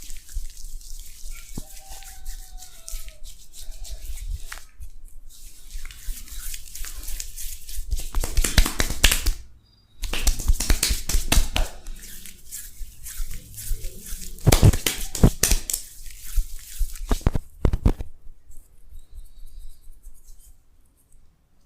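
Hands rubbing and massaging a face, close up: dense crackling, squishing friction strokes. They break off for a moment about halfway and stop a few seconds before the end.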